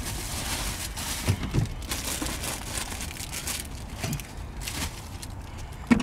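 Plastic bags and wrappers rustling and crinkling in irregular bursts as they are grabbed and gathered up, with a few dull knocks.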